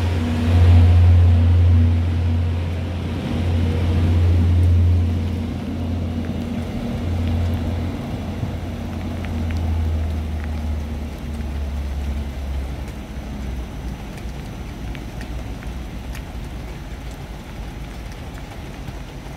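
Stadler GTW diesel-electric train pulling away, its engine giving a low steady drone that weakens and dies out about two-thirds of the way through as the train draws off, leaving a faint steady hiss.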